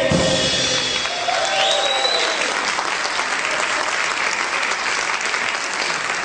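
Audience applauding, with a couple of cheers about a second in, as the last held chord of the big-band number cuts off.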